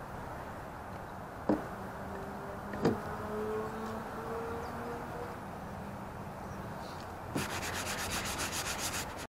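Hand sanding of the kayak's plastic hull, done to scuff it so spray paint will stick: fast, even back-and-forth scratching strokes that start about seven seconds in. Two light knocks come before it.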